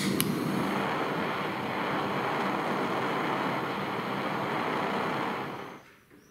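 Butane flame gun torch lit with a click of its igniter, then burning with a steady rushing hiss as it heats a steel branding iron. The flame cuts off suddenly near the end.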